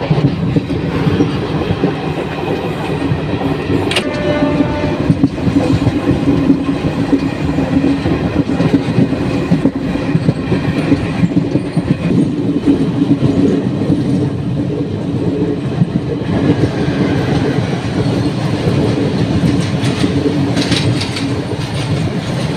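Express passenger train running at speed, its wheels clattering over the rail joints under a steady rumble, heard from an open window inside the coach. A short horn sounds about four seconds in, and near the end a freight train of open wagons rushes past on the next track.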